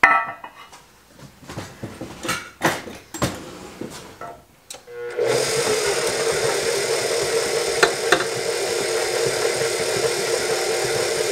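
A few scattered knocks and clicks, then, about five seconds in, a stand mixer starts and runs steadily at low speed, beating butter and powdered sugar for buttercream.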